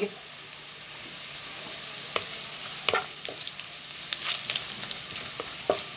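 Sliced onions and whole spices sizzling in hot vegetable oil in a wok, stirred with a wooden spatula. A steady hiss, with scattered sharp clicks from about two seconds in.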